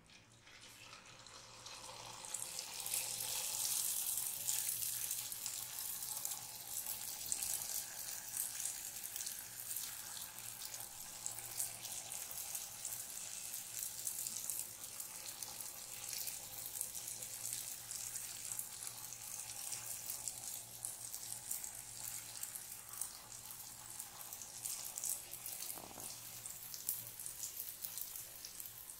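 Jalebi batter deep-frying in hot oil, piped in spirals from a squeeze bottle: a crackling sizzle that starts about a second in, grows over the next few seconds and then holds steady.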